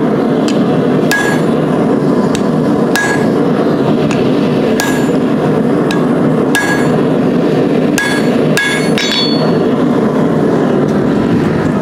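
Hand hammer striking hot railroad-spike steel on an anvil to make a half-face set down: about a dozen blows at roughly one a second, each with a short metallic ring. A loud, steady rushing noise runs underneath throughout.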